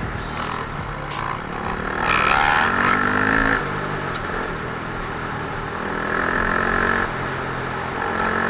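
Dirt bike engines running under throttle, the revs rising and falling as the rider works the throttle. A louder surge of revving comes about two seconds in and drops back about a second and a half later.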